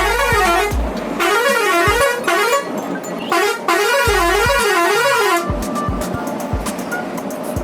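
A warbling, siren-like vehicle horn sounding three times, its pitch swinging up and down about twice a second, the last blast the longest. Background music with a low thumping beat runs under it.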